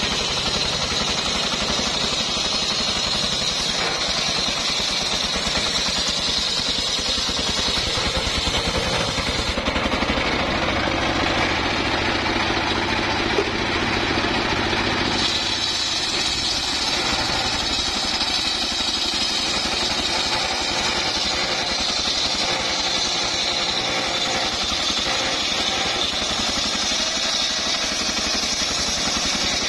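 Engine-driven homemade circular saw bench running steadily, its blade ripping lengthwise through a log. The cutting sound drops away for a few seconds around the middle while the blade spins free, then picks up again as the next cut starts.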